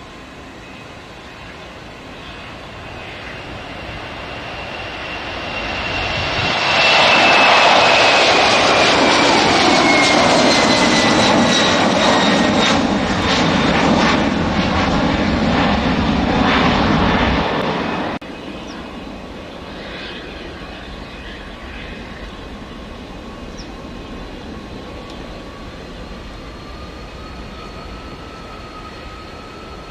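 Boeing 767 twin-jet taking off: its engines' roar builds to full loudness about seven seconds in as it climbs overhead, with a whine falling in pitch as it passes, and breaks off abruptly about eighteen seconds in. After that comes a quieter, steady jet-engine whine from a Boeing 747 freighter rolling slowly on the taxiway, its tone rising slightly.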